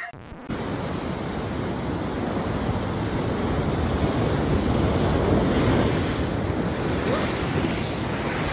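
Ocean waves breaking and washing up the beach, with wind buffeting the microphone; it starts about half a second in.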